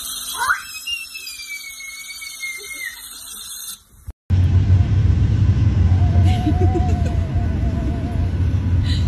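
Electric sonic toothbrush buzzing while a baby lets out a high squeal that rises steeply and is held for about two and a half seconds. After an abrupt cut, a loud low rumble follows, with faint voice sounds in it.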